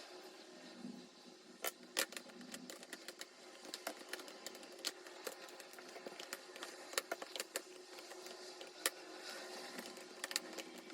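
Irregular light clicks and taps, as of small objects being handled and set down, over a faint steady hum in a small room; two sharper knocks stand out, about two seconds in and near the end.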